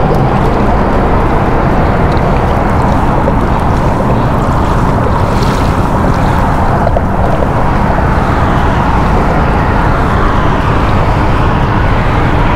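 Steady wind noise on the microphone, mixed with water washing along the hull of a moving kayak.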